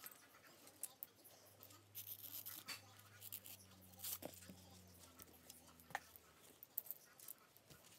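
Faint rustling and scratching, with a few sharp clicks, as a laptop bag is unwrapped and handled.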